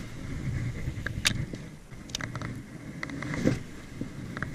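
Sweatshirt sleeve rubbing and brushing against the chest-mounted camera's microphone as the arm moves: a low, uneven rumbling rustle with a few short sharp clicks.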